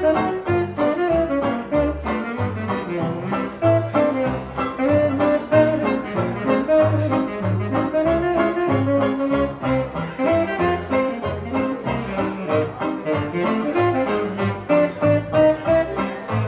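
Small 1920s-style hot-jazz band playing, with wind instruments carrying the melody over a steady bass line and beat.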